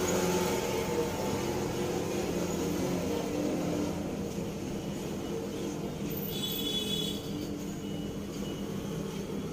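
Bass-heavy music playing through the earcup of boAt BassHeads 900 wired headphones held up to the microphone, a steady deep sound.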